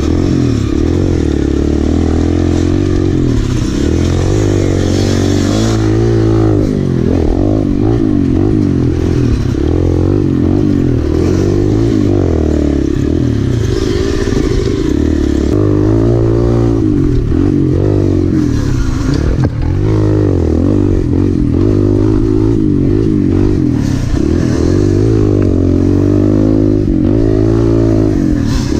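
Kawasaki KLX dirt bike's small four-stroke single-cylinder engine, heard from on the bike. It revs up and falls back again and again as the rider works the throttle along a rough trail.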